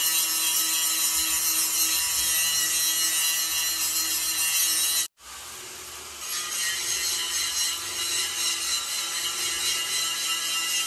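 Steady, loud rasping of a power tool working material. It breaks off abruptly about five seconds in and resumes a second later.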